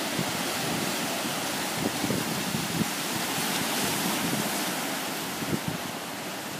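Small ocean waves washing over a rocky shoreline: a steady rush of surf that swells a little midway, with brief wind gusts on the microphone.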